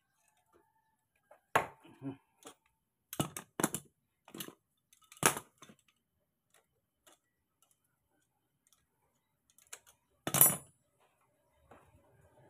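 Scattered sharp metallic clicks and clinks of a hex key and pliers working on a scooter's starter-motor bolts, about seven in all, the loudest about ten seconds in.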